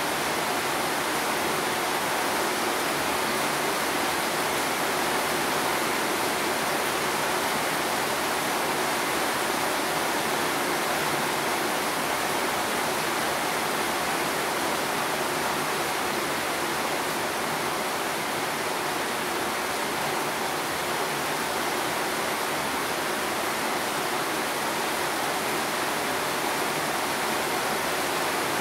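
Rain falling in a steady, even hiss.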